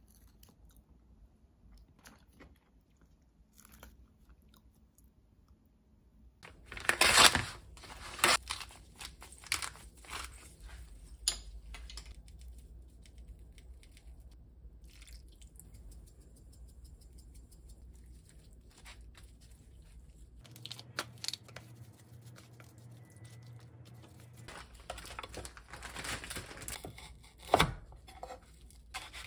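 Food preparation handling sounds: faint chewing at first, then a loud spell of tearing and crinkling about seven seconds in, followed by scattered taps and rustles while raw chicken thighs are seasoned in their plastic tray. A low steady hum runs for about four seconds past the middle, and more loud crinkling comes near the end.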